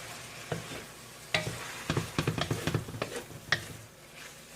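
A utensil stirring and knocking against a pan as ground beef and shrimp sauté with garlic, onions and tomatoes, sizzling under the strokes. The clatter is busiest from about a second in until past three seconds.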